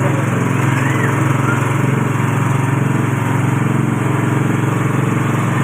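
A200 coconut milk pressing machine running at a steady pace, its drive giving a constant loud drone.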